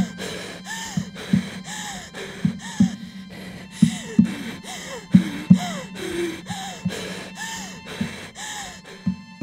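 A young woman gasping for breath in quick, wheezing gasps, each with a whistling rise and fall in pitch, over low regular thumps: the laboured breathing of an asthma attack. The gasping cuts off suddenly near the end.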